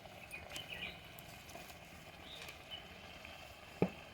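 Faint sizzling of rice-flour puris deep-frying in hot oil in a kadhai, with a single sharp knock near the end.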